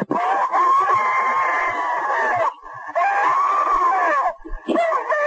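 An old woman's voice in a call recording, wailing in long, drawn-out cries of distress, pleading to God for help and for someone to help her breathe. About three long wails, with brief breaks between them.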